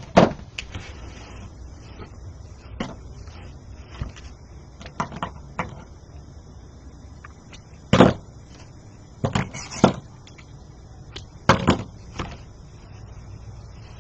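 Scissors trimming tulle ends on a wreath, mixed with handling of the wreath: about a dozen short, irregular snips and knocks, the loudest about eight seconds in and again about three-quarters of the way through.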